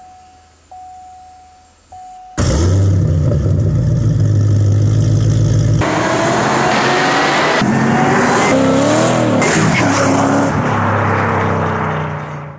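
Three short electronic chimes, then a Cadillac CTS-V's supercharged 6.2-litre V8 comes in suddenly through an aftermarket stainless header and exhaust system. It runs loudly and is revved up and down in the middle before fading out.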